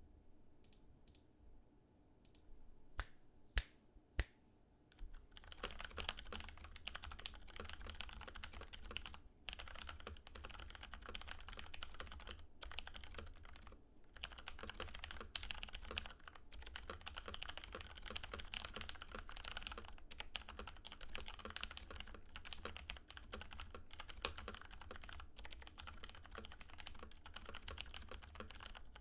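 Fast, continuous typing on a Filco Majestouch 2 TKL mechanical keyboard, built with lubed, stickered 67g Cherry MX Clear tactile switches, lubed Costar stabilizers and dye-sub PBT keycaps. For the first few seconds there are only a handful of separate sharp clicks. Steady typing starts about five seconds in, broken by a few short pauses.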